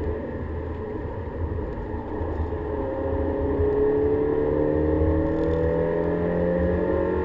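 Volkswagen Golf GTI's engine under way, heard from inside the cabin over steady road and tyre rumble. About three seconds in, the engine note climbs slowly and gets louder as the car accelerates.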